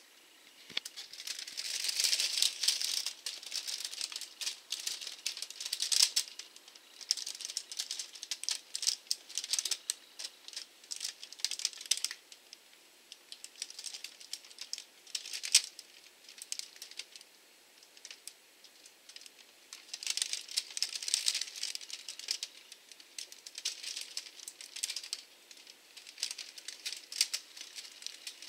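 Dense, irregular clicking and rattling that comes in bouts of a few seconds, with quieter gaps between.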